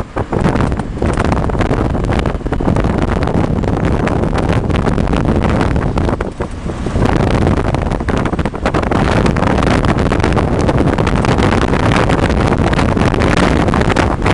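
A vehicle's engine running loudly under wind buffeting on the microphone, with brief dips about two seconds in and again around six to seven seconds in.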